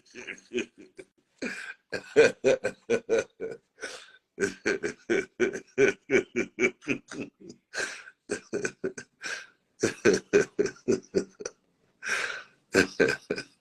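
A person laughing hard in quick repeated bursts, in runs broken by short pauses.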